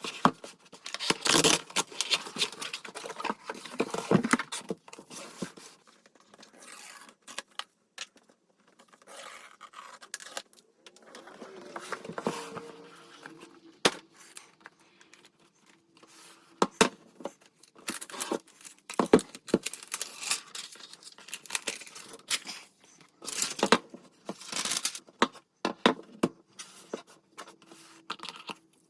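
Unboxing a laptop: packaging being torn, scraped and crinkled, with many sharp clicks and taps as the box and its contents are handled. The rustling is densest in the first few seconds.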